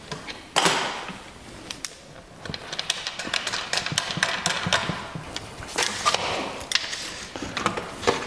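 Irregular sharp clicks and knocks, the loudest about half a second in, then a busy run of them: a steel tape measure being handled and held against the ceiling.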